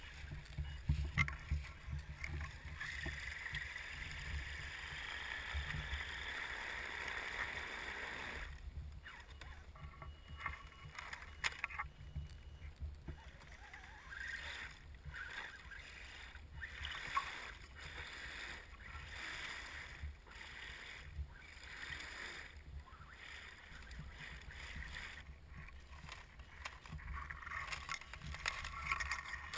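Axial SCX10 scale RC crawler driving through shallow creek water: its electric motor and gear drive whine while the tyres churn and splash the water, with scattered knocks and splashes throughout over a low rumble.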